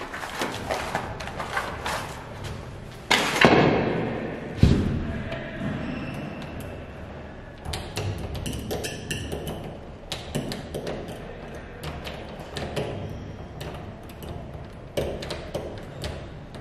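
Small metal clicks and clinks of hand tools being handled and worked into a door lock, with two heavy thuds about three and four and a half seconds in.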